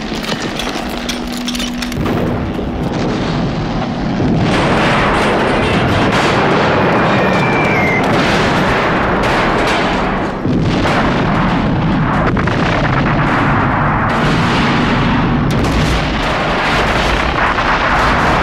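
Battle sound effects: a continuous din of explosions and gunfire with many sharp blasts, getting louder about four seconds in.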